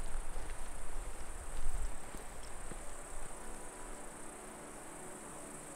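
Insects chirring steadily in a continuous high-pitched drone, the sound of crickets or grasshoppers in a summer meadow. A low rumble runs under it for the first two seconds, then fades.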